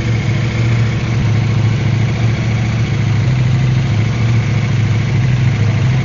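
KTM 790 Adventure's parallel-twin engine idling steadily, with a new spark plug fitted while chasing a hard-start, one-cylinder-not-firing fault.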